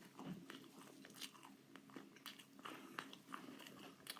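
A person chewing a mouthful of chicken sandwich, faint: soft crunching and small mouth clicks coming at an uneven pace.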